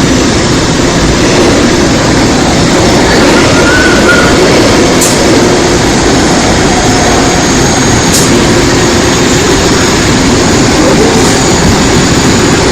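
Interior running noise of a Seoul Metro Line 2 old 2000-series resistor-controlled electric train on the move: a loud, steady rumble of wheels on track and the car body.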